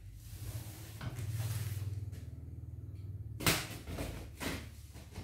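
Packaging being cut and torn open on a taped, plastic-wrapped cardboard carton: scraping and ripping of packing tape, with the loudest sharp rip about three and a half seconds in and a shorter one a second later. A steady low hum runs underneath.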